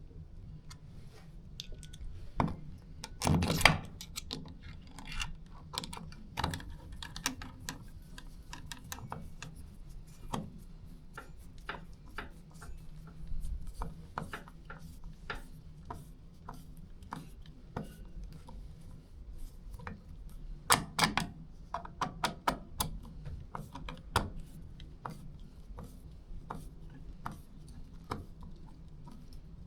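Screws being tightened on a keypad door lock's exterior trim with a screwdriver: irregular clicks, scrapes and light knocks of tool and metal parts, with louder clusters of knocks a few seconds in and again about two-thirds of the way through.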